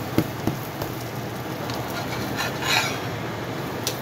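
Pancake sizzling in butter in a frying pan, a steady frying hiss. A spatula clicks against the pan a few times at the start and scrapes across it once near the middle.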